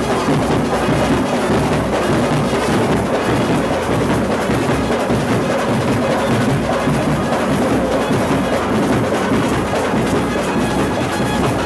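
Live street band playing loud dance music, with clarinet and trumpet over drums.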